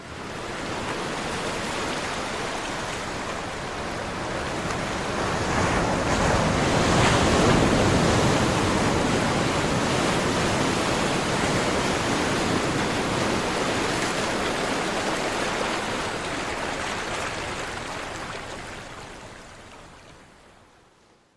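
Caribbean Sea surf: a continuous wash of waves that swells to its loudest about a third of the way in, then fades out near the end.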